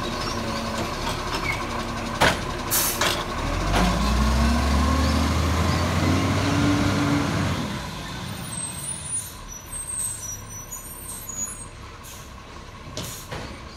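Diesel garbage truck moving off: a few short air-brake hisses, then the engine revving hard as it pulls away, its pitch rising steadily for about four seconds. The engine sound then drops away as the truck drives off.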